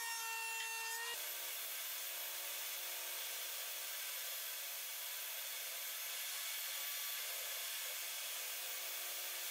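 Benchtop thickness planer running with a steady whine as a board feeds through; about a second in it cuts off abruptly to a jobsite table saw ripping a Douglas fir 2x4 into thin strips, a steady even cutting noise with a faint motor hum underneath.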